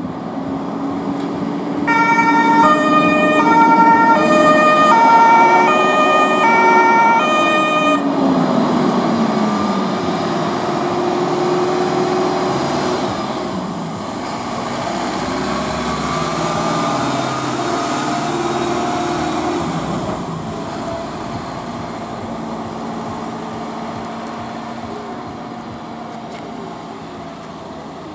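Mercedes-Benz Unimog fire engine sounding its two-tone siren for about six seconds, starting about two seconds in, over its running engine. Once the siren stops, the engine noise slowly fades as the truck drives away.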